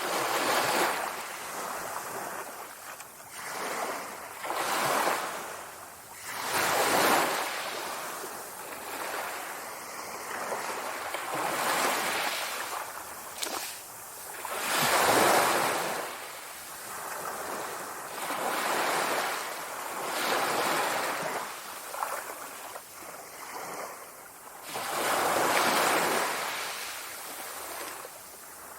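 Sea waves breaking and washing on the shore, surging and falling away in repeated swells every few seconds.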